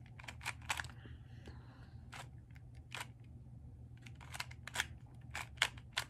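Plastic 2x2 Rubik's cube being turned layer by layer, its pieces clicking and clacking at irregular intervals, some turns in quick pairs.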